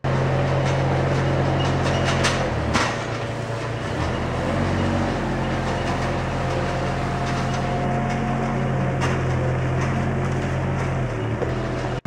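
Schäffer mini loader's engine running steadily while it drives a hydraulic TMT Flextrim 150 hedge trimmer cutting branches. A few sharp cracks come about two to three seconds in, and the engine note dips briefly as it takes the load.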